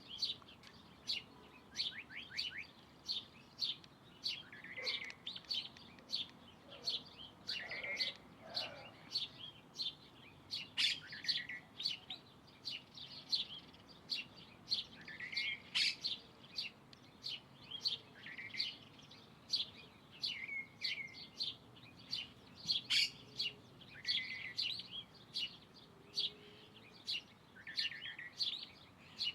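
Small birds chirping: a continuous run of short, sharp, high chirps, more than one a second, with now and then a lower, arching note.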